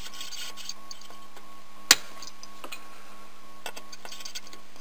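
Light clicks and taps of a soldering iron working along the pins of a surface-mount chip on a circuit board, with one sharp click about two seconds in. A steady hum runs underneath.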